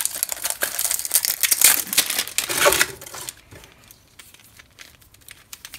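Clear plastic bag crinkling for about three seconds as it is pulled off a coiled air hose, followed by a few faint light clicks and rustles as the hose coil is handled.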